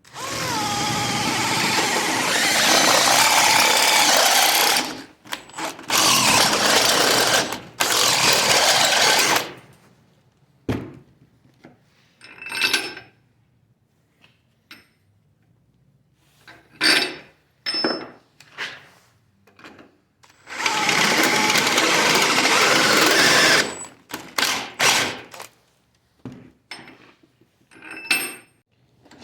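Stick welding with a 7014 rod on a 160 A inverter welder: the arc crackles and hisses in runs of a few seconds, three long runs in all, with short spits and clicks of brief arc strikes between them.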